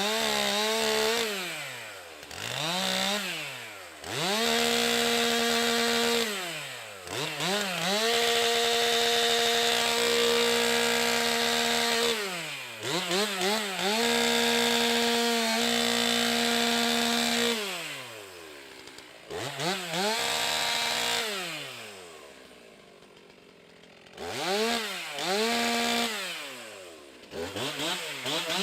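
Stihl MS 362 C-M two-stroke chainsaw repeatedly revved up to full throttle and held there for a few seconds at a time as it cuts wood, then dropped back toward idle between cuts, several times over.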